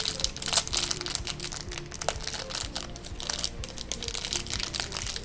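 Plastic toy packaging crinkling and crackling as it is handled and pulled open, a rapid run of sharp irregular crackles with one louder snap about half a second in, over quiet background music.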